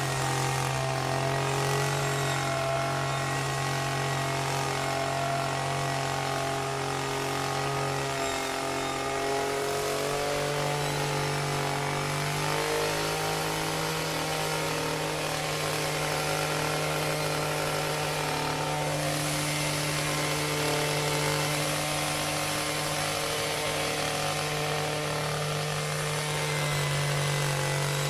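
Chainsaw running steadily at speed, a continuous engine drone whose pitch dips and rises slightly a few times.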